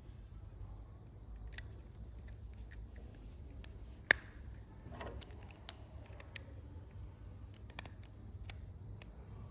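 Scattered small clicks and taps of hands handling the plastic parts of a car AC switch, with one sharp, louder click about four seconds in, over a steady low hum.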